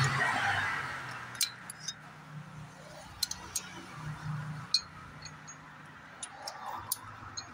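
Hand tools and bolts clinking against the engine's exhaust manifold during turbo work: a dozen or so sharp, scattered metallic clicks. There is a short rustle at the start.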